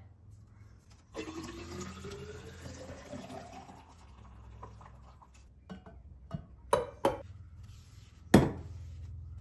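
Tea poured into a glass carafe, the filling sound rising steadily in pitch for about three seconds as the carafe fills. Then a few clinks and one loud clunk near the end as kitchenware is handled and set down.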